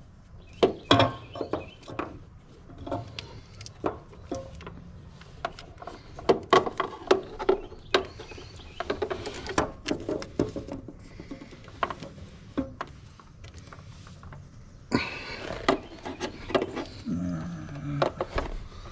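Hands working fuel-pump wiring and plastic connectors: irregular clicks, taps and rustles of wire and plastic. About fifteen seconds in comes a longer rasp of electrical tape being pulled off the roll.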